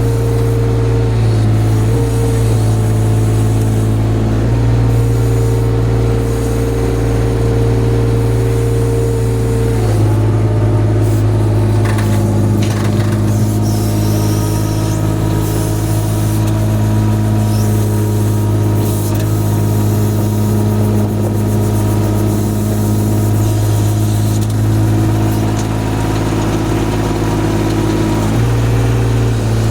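Engine of a weed-clearing boat running steadily, its note shifting a few times as the load changes, notably about ten seconds in and again near the end.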